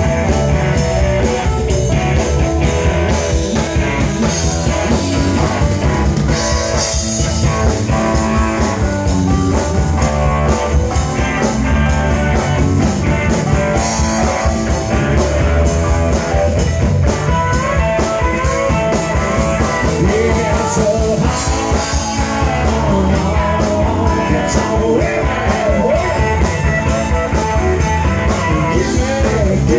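A live rock band playing amplified, with electric and acoustic guitars, bass, drums and keyboard over a steady beat.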